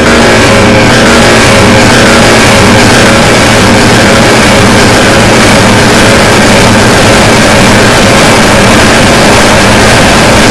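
Harsh noise music: a very loud, unbroken wall of distorted noise over a low rumble, filling everything from deep bass to high hiss.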